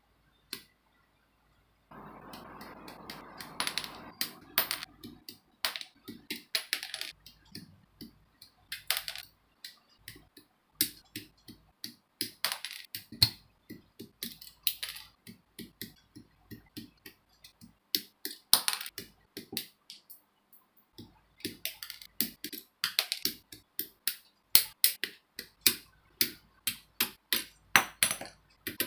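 Hobby side cutters snipping parts off the grey plastic runners of a Master Grade 1/100 Crossbone Gundam X2 model kit: many sharp, irregular clicks and snaps. There is a short rustle of plastic being handled about two seconds in.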